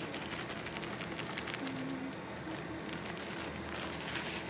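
Crinkling of a plastic bag of brown sugar as it is tipped and shaken over a mixing bowl.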